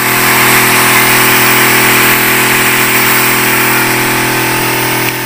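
Battery-powered agricultural spray pump running with a steady hum, with the loud hiss of a fine mist jetting from a brass spray nozzle.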